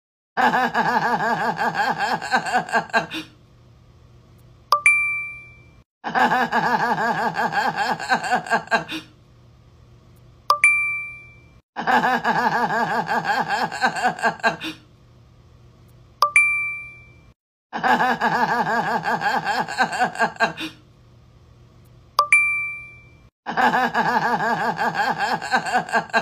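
The same short trend sound repeats five times: about three seconds of pulsing laughter, a brief pause, then a single bright ding that rings and dies away.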